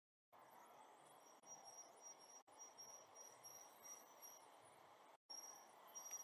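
Faint high-pitched insect chirping in short, evenly spaced pulses over a low hiss of distant street noise, with a few brief dropouts of all sound.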